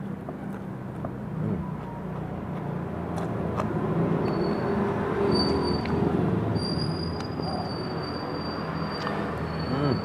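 A motor vehicle's engine rumbling nearby, growing louder from about four seconds in, with a thin steady high whine through the second half.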